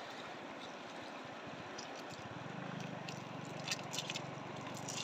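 Steady rush of shallow river water flowing. A low hum joins about two seconds in, and a few light clicks come near the end.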